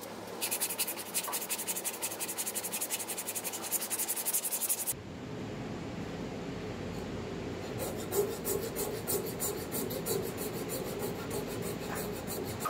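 Hand coping saw cutting through plum wood in quick, rasping strokes. The strokes come in two spells, the first about half a second in and the second from about eight seconds on.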